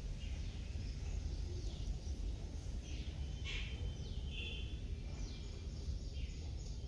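Songbirds chirping with short downward-sliding calls and one brief held note about four and a half seconds in, over a steady low rumble.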